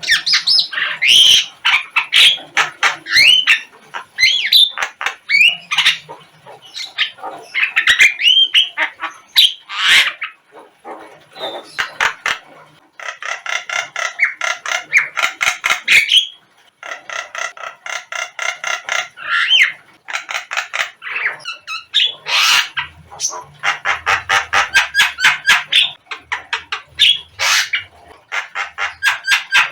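Javan myna (jalak kebo) calling and singing: a varied mix of short whistles, squawks and slurred notes, broken by long runs of fast, evenly repeated harsh notes.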